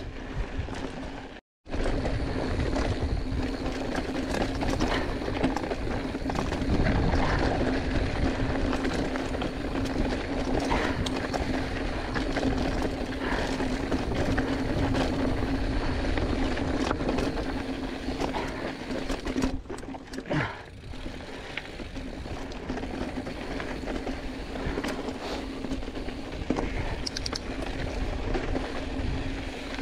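Giant Fathom 2 hardtail mountain bike riding fast over dry, rocky gravel singletrack: knobby tyres rolling and crunching on the stones under a steady noisy rush, with a steady low hum. The sound cuts out completely for a moment about a second and a half in.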